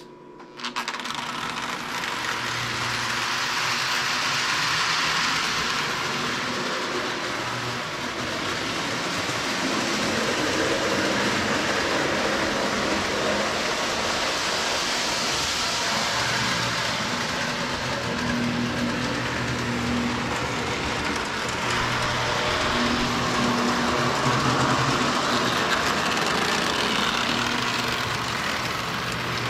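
Lionel O-gauge toy train running on its track: a steady motor whir and wheel rumble with a low hum, swelling and easing every several seconds.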